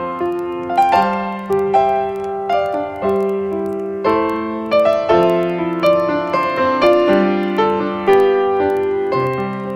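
Background piano music: chords and a melody, each note struck and left to ring.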